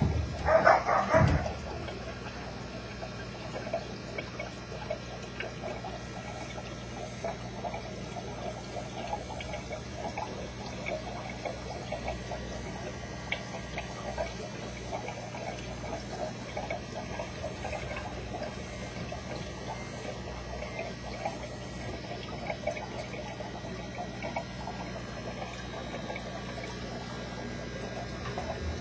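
Aquarium water bubbling and trickling steadily, with a steady low hum underneath. A short louder sound comes right at the start.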